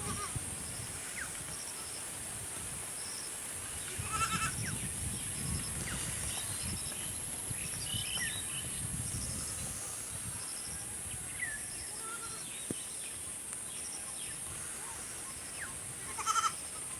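Two short animal cries, one about four seconds in and one near the end, over a steady high hiss and scattered short chirps.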